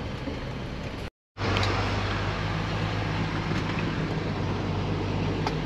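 Rollback tow truck's engine running steadily, heard from the cab, with a low steady hum. The sound drops out for a moment about a second in and then resumes a little louder.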